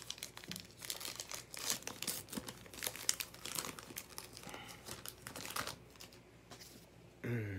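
Cardboard trading cards being flipped through and sorted by hand: an irregular run of quick soft flicks and rustles that thins out toward the end. A short voice sound comes right at the end.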